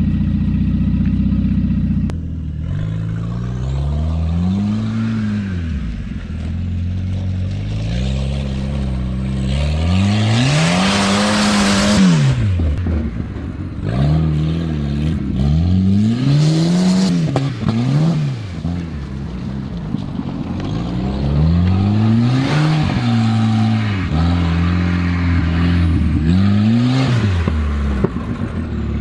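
Turbocharged Volvo 940 engine revving up and down again and again as it is driven hard off-road, reaching high revs about every five to six seconds. A loud rushing hiss rises at several of the highest peaks.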